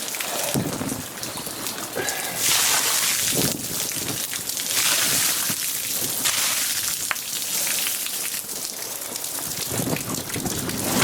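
Rain falling steadily, with louder rushing spells about two and five seconds in.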